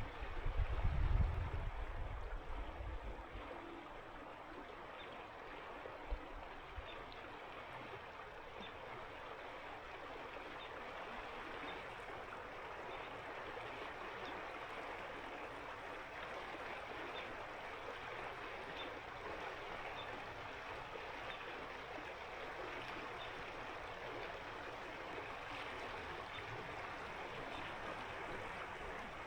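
Winter mountain river rushing steadily over its bed, an even hiss of flowing water. A loud low rumble sits under it for the first three seconds.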